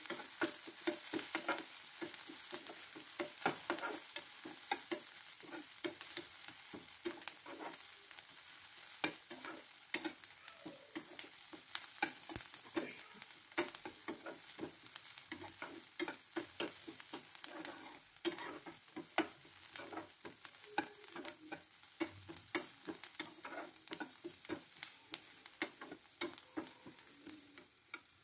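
Chopped onions, curry leaves and dried red chillies sizzling in hot oil in a pan, while a metal spatula stirs them, scraping and tapping against the pan a few times a second.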